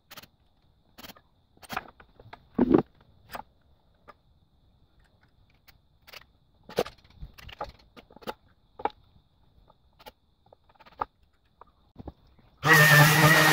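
Scattered knocks and clacks of wooden and metal desk parts being handled and set down. Near the end an electric sander switches on and runs loud and steady.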